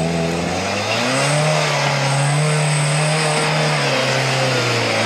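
Off-road 4x4 competition vehicle's engine revved up sharply and held at high revs under load as it climbs a steep dry-dirt slope. The engine note wavers, sags about four seconds in, then rises again.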